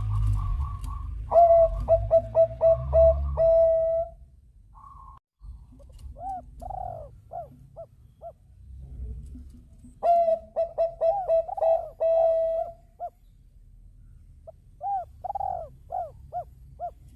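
Zebra dove (perkutut bangkok) cooing: two loud bouts of quick staccato coos, each trailed by a few softer, rising-and-falling notes.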